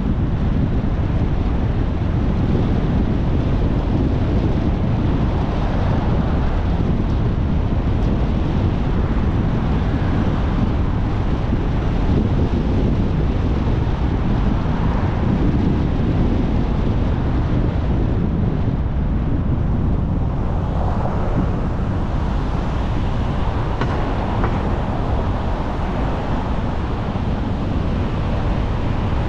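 Steady wind noise on the microphone mixed with tyre and road noise from a moving car: a loud, even rush weighted to the low end.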